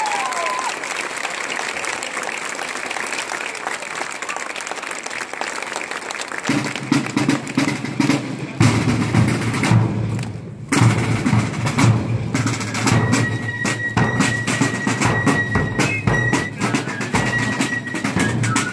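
Military fife and drum corps: snare drums and a bass drum beat out a march, and fifes come in with a high tune about two-thirds of the way through.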